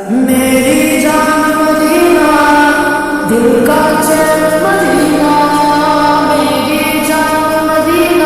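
An Urdu Islamic devotional song (gojol) sung in long, held phrases. Each new phrase begins with an upward slide into the note: at the start, about three seconds in, and near the end.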